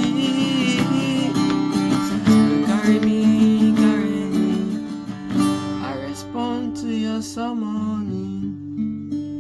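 Worship music: acoustic guitar strumming held chords, with a voice singing a wordless melody over it that thins out in the second half as the music grows quieter.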